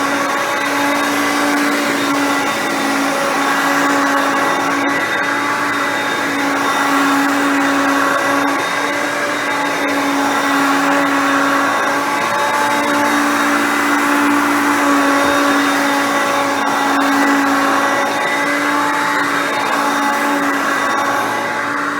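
Hoover Concept Two upright vacuum cleaner, with its 5.6-amp motor, running steadily while vacuuming: a constant motor hum over the rush of air.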